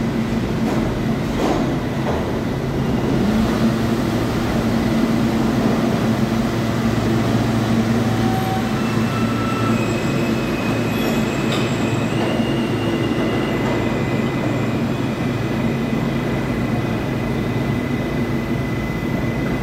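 R160 subway train pulling out of the station and running off down the tunnel, a steady low rumble of motors and wheels on rail. Thin, high wheel squeals set in about halfway through and last to the end.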